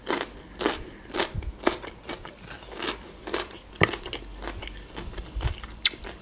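Close-miked chewing of a mouthful of food, with short crunchy chews about twice a second. A couple of sharper clicks come from a fork on a plate.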